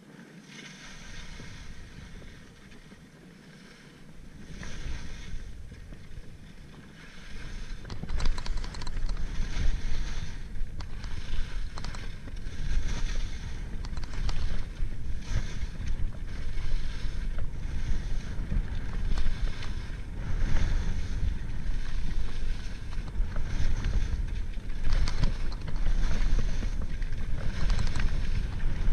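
Alpine skis carving and scraping over packed snow in a regular rhythm of turns, about one a second, with wind rumbling on the microphone. Both grow much louder about seven seconds in as the skier picks up speed.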